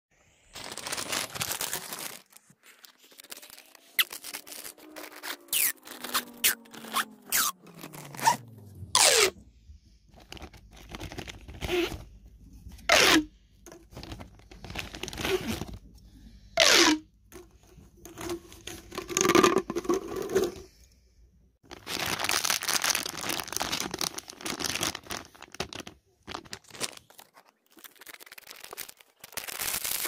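Plastic packaging crinkling and being torn open, and ribbed plastic pop tubes being stretched and bent. The result is a string of sharp clicks and pops between stretches of rustling.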